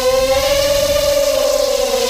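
ZMR250 quadcopter's brushless motors whining steadily in flight, the pitch wavering slowly up and down with the throttle. The motors are working hard under the extra weight of a GoPro.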